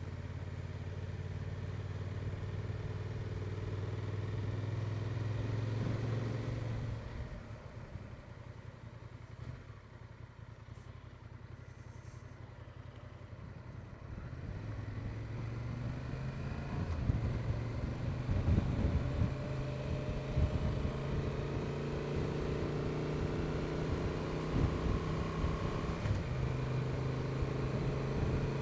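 Honda XL750 Transalp's parallel-twin engine running steadily under way. The engine eases off and goes quieter about seven seconds in, then pulls away again from about halfway, with wind buffeting the microphone.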